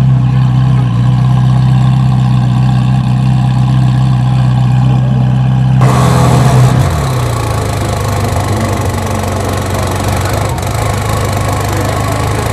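Supercar engine idling steadily with a deep, even hum. About six seconds in, it cuts to another idling engine with more hiss around it.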